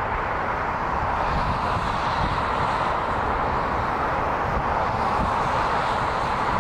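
Steady roar of a four-engined Airbus A340-313's jet engines as it lands, mixed with the rumble of passing trucks.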